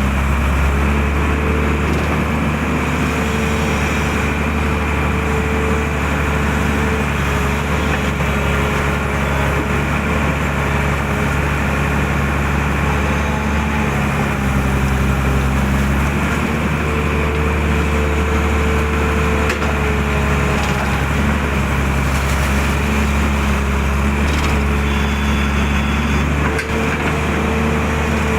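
Excavator's diesel engine running steadily under working load, its note shifting slightly every few seconds as the hydraulics work, with a few faint knocks.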